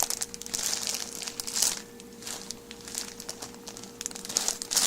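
A bag being handled and crinkling in bursts, most likely the bag of whole wheat flour being picked up and turned over.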